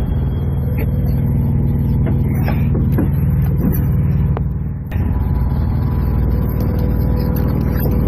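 Large diesel truck engine idling steadily close by, with a single thump about five seconds in.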